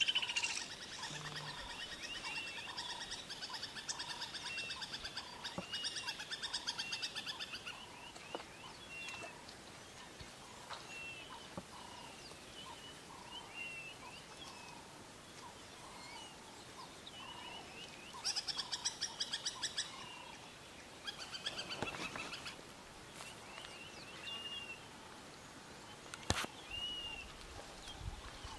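Birds calling: short chirping notes repeat about once a second, and a rapid trill joins in over the first several seconds and again in short bursts later on.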